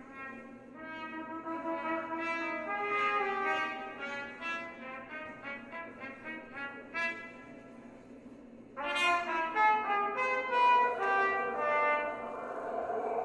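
Two trumpets playing a free, overlapping line of short, separate notes. The notes grow louder and brighter about nine seconds in.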